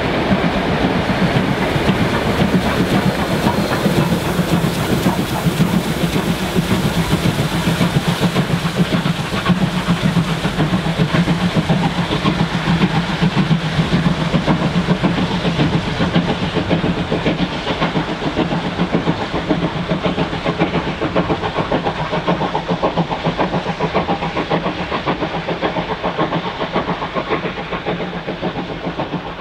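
Victorian Railways steam locomotives A2 986 and K153 working hard up a steep grade: a fast, steady beat of exhaust chuffs with hissing steam and the carriages' wheels clattering.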